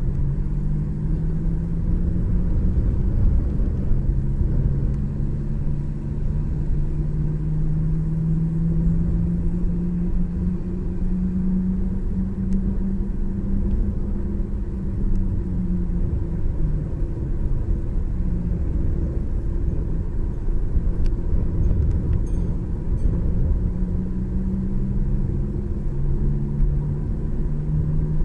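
Vehicle engine running steadily while driving slowly along a city street, with a low road rumble underneath; the engine's pitch drifts gently up and down with speed.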